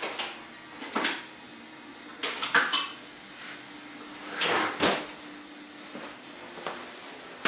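Metal hand tools clinking and clattering as they are rummaged through and a pair of vise-grip locking pliers is picked out, in three short spells of clanks with a little ringing.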